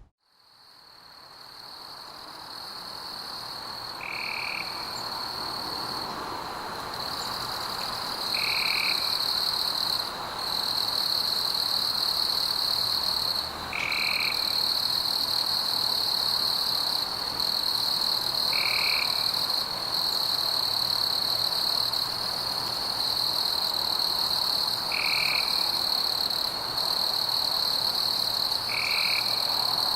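Night frog chorus: a steady high trill with a short call repeating about every four to six seconds, six in all, over a dense background chorus. It fades in over the first few seconds.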